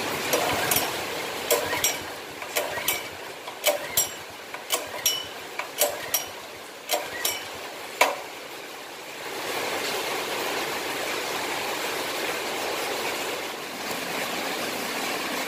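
Metal clinks and knocks, a dozen or so in the first eight seconds, some ringing briefly, typical of hand tools handled on metal engine parts. They are followed by a steady hiss, with no engine running.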